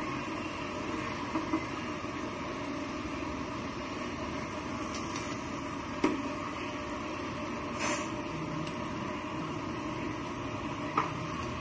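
Breadcrumb-coated vegetable cutlets deep-frying in a kadai of hot oil, a steady sizzle, with a few light taps of a steel ladle against the pan as they are turned.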